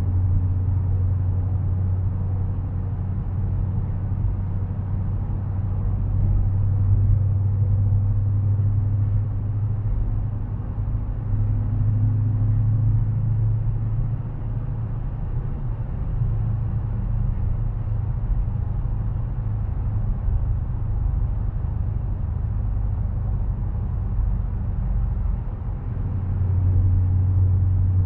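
Steady low drone of a Dodge Challenger cruising at highway speed, heard inside the cabin: engine and exhaust hum around a constant low pitch mixed with tyre and road noise. It swells slightly a few times.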